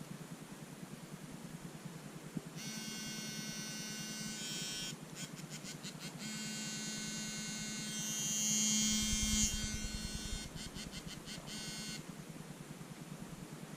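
OnePlus 3T smartphone's vibration motor running with a harsh, terrible buzzing noise, which the owner takes for a fault. It runs in long steady stretches, breaks twice into quick pulses, and stops about two seconds before the end.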